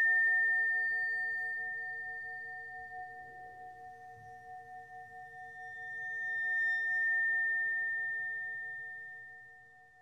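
Tibetan bells ringing: a few held tones that pulse slowly and sound together, loudest at first and dying away, then swelling again about seven seconds in before fading out near the end.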